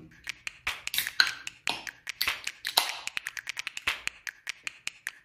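Fingers tapping on the top of an aluminium beer can: a quick, uneven string of sharp taps.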